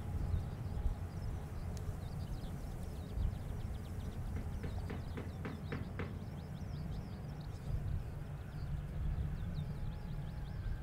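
Low, steady rumble of a Boeing 787-8's Rolls-Royce Trent 1000 jet engines as the airliner rolls away down the runway, slowly fading. High chirping sounds run over it, with a quick series of pulses about halfway through.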